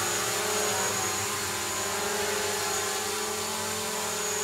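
DJI quadcopter drone hovering, its propellers giving a steady whine with a strong humming tone that holds one pitch throughout. This is a test hover after a repair, with the drone flying normally.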